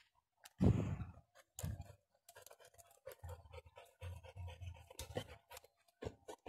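Handling noise from a handheld phone and scuffing footsteps on a dirt slope: a loud bump about half a second in, then irregular low thuds and scraping.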